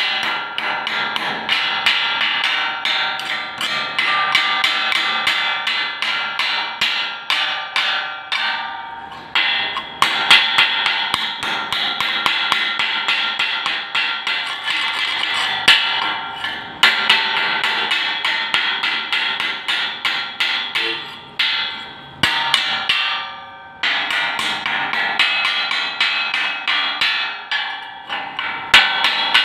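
Chipping hammer rapidly striking fresh welds on square steel tubing, knocking the slag off, a few sharp taps a second with the steel ringing after each. The tapping stops briefly a few times as it moves from joint to joint.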